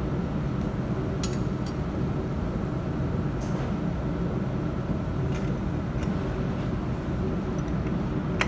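Steady low mechanical hum of running workshop machinery, with a few light clicks about a second in and again later.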